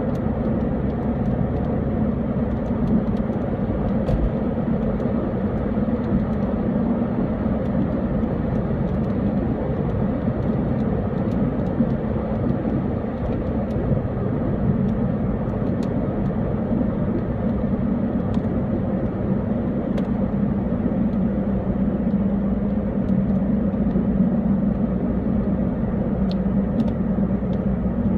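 Car running on the road, heard from inside the cabin: a steady low engine hum with road and tyre rumble, and a few faint ticks.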